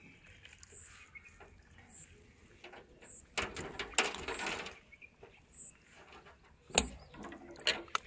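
Handling of a freshly caught fish and its hook on a boat floor: scattered clicks and knocks, a rustling, scraping stretch around the middle and a sharp knock near the end. A faint high chirp repeats about once a second.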